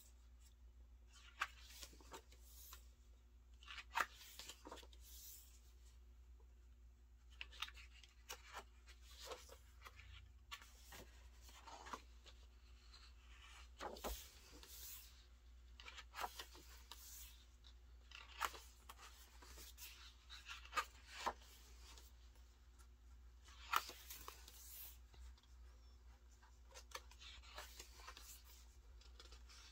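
Pages of a large photobook being turned by hand: faint, intermittent paper rustles and swishes with soft taps as each page is handled and laid flat, over a low steady hum.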